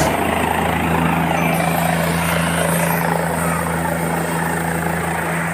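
Helicopter running on the ground with its engine and main rotor turning, ready for takeoff: a steady drone with a constant low hum.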